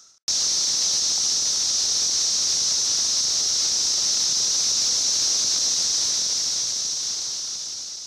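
Chorus of Brood X 17-year periodical cicadas: a loud, steady, high-pitched shrill drone. It starts abruptly just after the start and fades out near the end.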